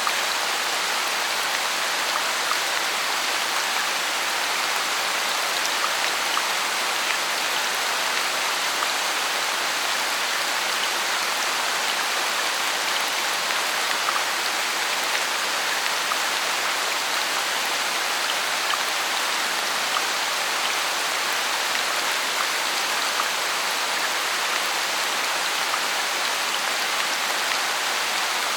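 Steady rain: a continuous hiss of falling rain with the patter of individual drops, even in level throughout.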